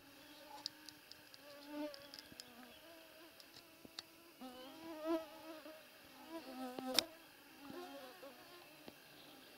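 Flying insects buzzing close to the microphone, the pitch wavering up and down as they circle. A few sharp clicks sound over the buzzing, the loudest about seven seconds in.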